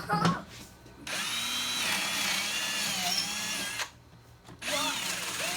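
Power drill running in two runs: a steady whine of nearly three seconds starting about a second in, its pitch sagging briefly as the bit loads up, then a short pause and a second run near the end.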